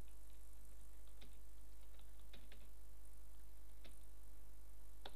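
Computer keyboard being typed on, a handful of separate keystrokes spread out over a few seconds, over a steady low electrical hum.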